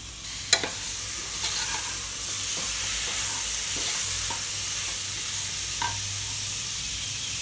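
Onion masala and freshly added chopped tomatoes sizzling in oil in an aluminium pressure cooker pan, stirred with a spoon that scrapes and knocks against the pot. One sharp knock comes about half a second in, and a few lighter ones follow.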